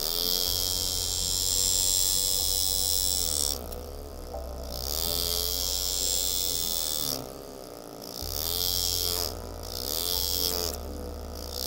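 Engraving graver cutting into a stainless steel knife handle. It buzzes in several bursts of a few seconds each, with a hiss, and its pitch rises and falls within each burst.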